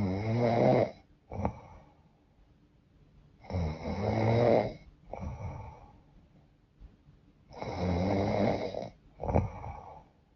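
A woman snoring in sleep: three long, loud snores about four seconds apart, each followed by a short, weaker breath sound. The snorer says her nose is often blocked and runny.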